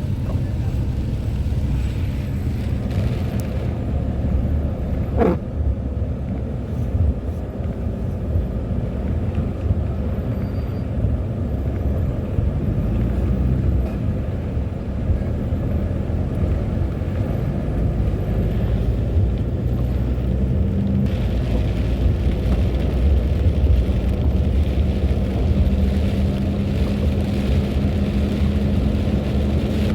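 Car engine and road noise heard from inside the cabin as the car drives, a steady low rumble. A steady hum joins it about two-thirds of the way through, and a short sound falling in pitch comes about five seconds in.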